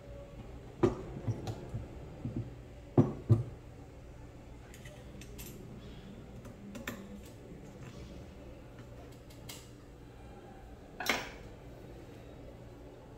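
Metal tools and air-rifle parts knocking and clinking on a wooden workbench as the rifle is handled. There are a few sharp knocks in the first three and a half seconds, light ticks in the middle, and one more knock about eleven seconds in.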